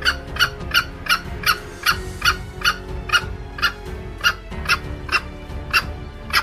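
Junglefowl clucking in a fast, even series of short calls, about two or three a second, with music playing underneath.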